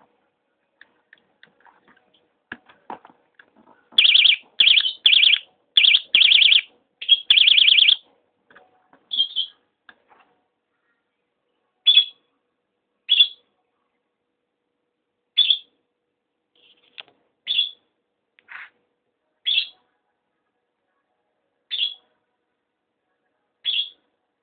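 Electronic fishing-rod bite alarm chirping, the signal it gives for a bite. A run of rapid, high warbling chirps comes about four seconds in, then single short chirps every second or two, with faint clicks just before the first chirps.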